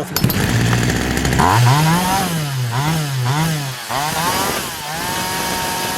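Poulan Wild Thing 2375 chainsaw's two-stroke engine running after a restart without priming, revved up and down several times, then held at a steady high speed near the end.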